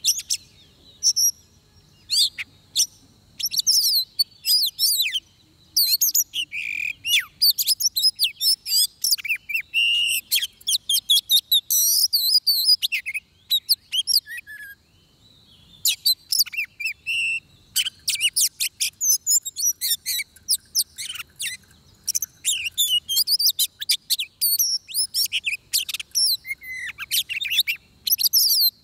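Oriental magpie-robin singing a fast, varied song of sweet whistles, chirps and gliding notes, with a short pause about halfway through.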